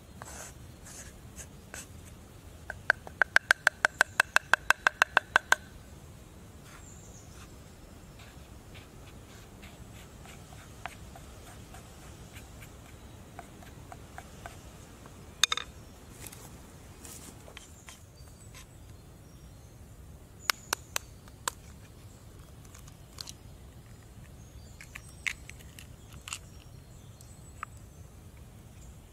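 A spoon rapped quickly against a bowl about a dozen times a few seconds in, each tap ringing briefly, knocking flour out onto a wooden board. After that come scattered light taps and scrapes of utensils, with one sharper clack about halfway through.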